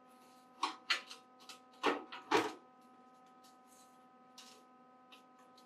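Steel plate knocking and clinking against steel as a heavy upright plate is worked down into its slot in a steel base: several light knocks in the first second or so, the two loudest about two seconds in, then a few faint ticks, over a steady hum.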